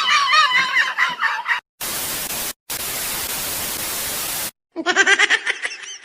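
Comedy sound-effect clips in a row: a high-pitched laugh, then about three seconds of steady static hiss with a brief break, then another short high-pitched laugh.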